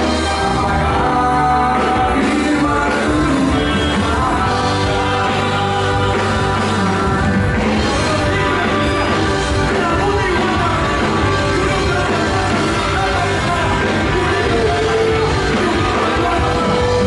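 A band playing a rock-style song, with singing over the instruments and a steady beat.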